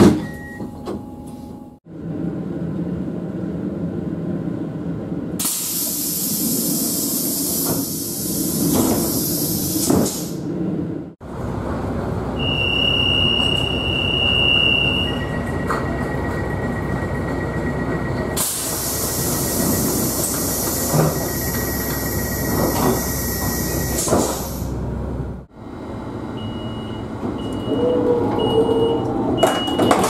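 Dutch train doors closing for departure, one train after another. On a DD-AR double-deck coach, a long hiss as the doors shut. On a refurbished DDZ, the conductor's flute blows a high steady whistle for about two seconds, then a steady door warning tone sounds under a long hiss while the doors close; a Connexxion FTD Protos then starts a string of short high door-closing beeps near the end.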